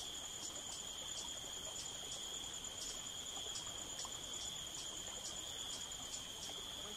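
Insects calling: a steady, high-pitched trill that doesn't break, with a second, higher call pulsing about three times a second.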